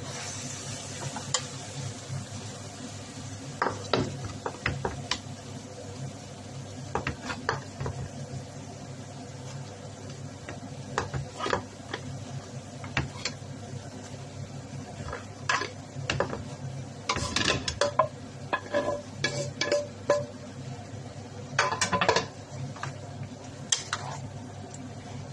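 A utensil scraping and knocking against a cast-iron skillet as meatballs in tomato sauce and scrambled egg are stirred, in irregular clusters of scrapes, busiest in the second half, over a steady low background hum.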